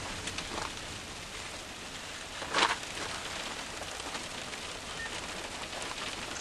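Steady hiss of thunderstorm wind and rain, with one brief louder rush about two and a half seconds in.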